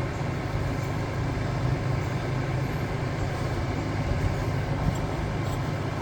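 A steady low mechanical hum, like a motor or engine running at a distance, with a faint click near the end.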